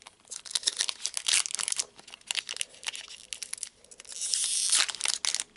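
Crinkly foil wrapper of a Pokémon TCG booster pack being handled and torn open, a dense crackling with a longer tearing rasp near the end.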